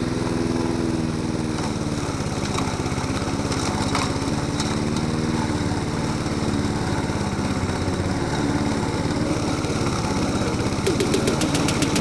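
Petrol walk-behind rotary lawn mower running under load through tall, thick grass, its engine note dipping and recovering as it labours in the heavy cut. A run of quick ticks near the end.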